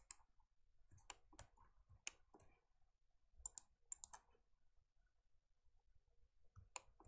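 Faint clicks of a computer mouse and keyboard, about a dozen scattered irregularly, several coming in quick pairs.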